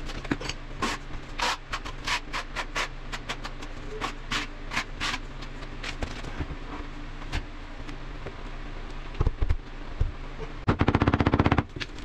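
Scattered clicks and taps of tiles and hand tools being handled during wall tiling, with two heavier knocks about nine seconds in. Near the end comes a fast rattle of many quick strikes lasting about a second.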